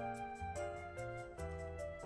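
Instrumental background music: a light melody over a bass line, with a steady ticking beat.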